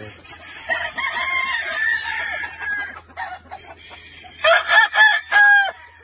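Gamecock roosters crowing: a long crow starts about a second in, and a much louder, close crow comes about four and a half seconds in.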